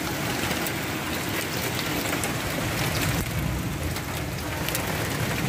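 Heavy rain pouring steadily, with many sharp ticks of drops striking hard surfaces.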